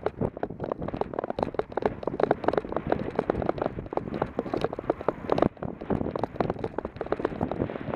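Mountain bikes rolling fast down a loose, rutted dirt trail: a dense, continuous rattling and crunching of tyres over gravel and bike parts jolting, with wind noise on the microphone.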